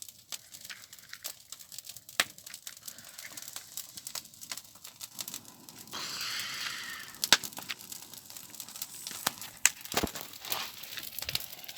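A paper bonfire crackling, with sharp snaps and pops throughout. From about six to seven seconds in there is a hissing rush.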